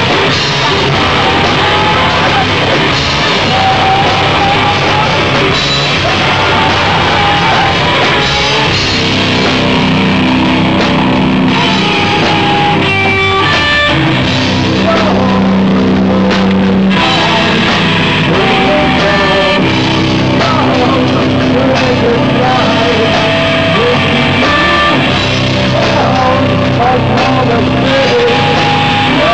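Loud live rock band: electric guitar through a Marshall amp, bass guitar and a drum kit playing together, with a singer's vocals over them.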